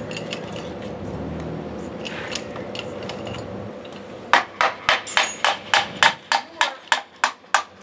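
A rapid, even series of sharp strikes, about four a second, beginning about halfway through over a faint steady hum.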